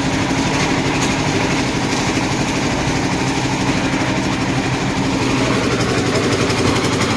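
Engine-driven concrete mixer running steadily, mixing a batch of grit, stone dust, cement and water for a concrete roof slab.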